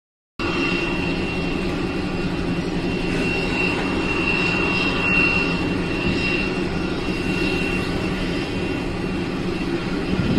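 Jet aircraft engine running steadily: a low, even rumble with a thin high whine that comes and goes. A split second of silence at the start.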